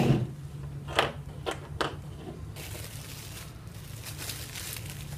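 A few sharp clicks of small plastic charger parts set down on a table, about a second in. Then a clear plastic bag crinkles steadily as the car charger is unwrapped from it.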